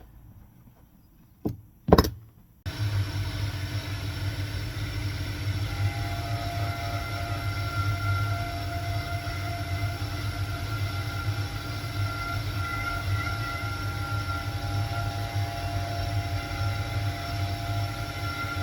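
Two short knocks, then a few seconds in an electric machine in a shoe-repair workshop switches on abruptly and runs steadily, with a low hum and a steady whine.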